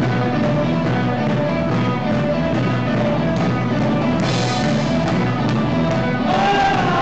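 Live rock band playing electric guitars and a drum kit, heard in the room. A crash comes about four seconds in and another near the end, with a note sliding down in pitch at the close.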